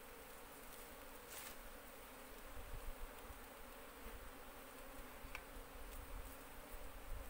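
Asian honey bees (Apis cerana) buzzing in a faint, steady hum around an exposed comb, with a couple of short clicks.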